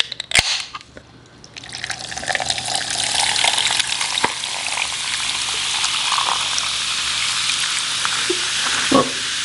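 A can of sparkling drink is cracked open with a sharp click, then poured over ice into a glass mug. The carbonated drink fizzes with a steady hiss that builds up over the first couple of seconds of the pour and keeps going as the mug fills.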